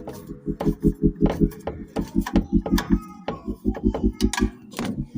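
Metal clicks and rattles of a hand tool tightening the washing machine spin motor's mounting screws, over a steady low throbbing that pulses about six times a second.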